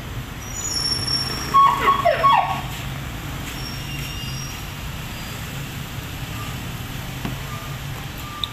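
Street traffic, with a vehicle engine running steadily, and around two seconds in a short loud sound that glides in pitch, in three or four quick pulses.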